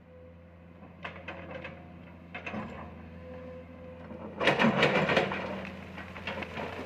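Excavator engine running with a steady low hum, with scattered knocks and a louder burst of clattering about four and a half seconds in.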